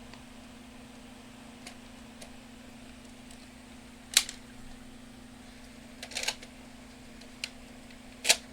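Sharp plastic clicks and clacks of a Nerf blaster being reloaded and handled: three loud clacks about halfway through, a little later and at the very end, with a few fainter ticks in between.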